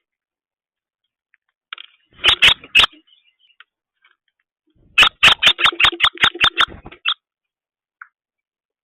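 Sharp clicks in two groups: three about two seconds in, then a quick run of about ten at roughly five a second, ending near the seventh second.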